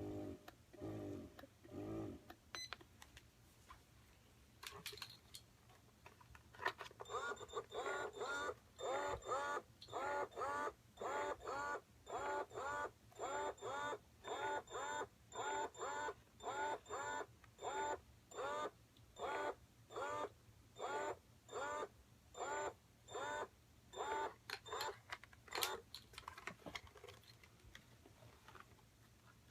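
Electric breast pump running, its motor whirring in an even pulse of about one and a half strokes a second as it cycles suction. The pulse starts about seven seconds in and stops near the end.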